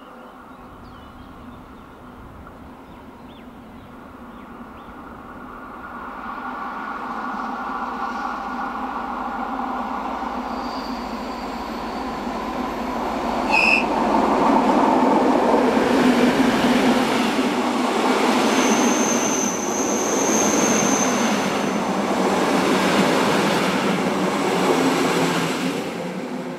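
Class 754 'Brejlovec' diesel locomotive's engine running as it hauls a passenger train toward and past the listener, the hum swelling from about a quarter of the way in and loudest in the second half. A brief high chirp comes just past halfway, and a steady high wheel squeal sounds for a couple of seconds on the curve.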